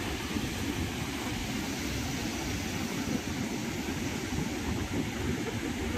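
Wind buffeting the microphone over the steady rush of surf breaking on the beach.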